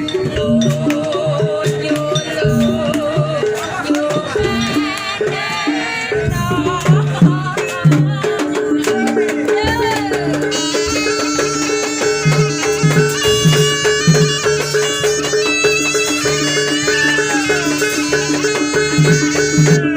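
Jaranan accompaniment music from a traditional East Javanese ensemble: drums beating under a wavering high melody, with steady ringing tones taking over about eight seconds in.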